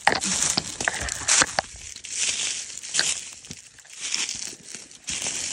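Footsteps crunching through a thick layer of dry fallen leaves at a slow, uneven walking pace, with a few sharp cracks among them.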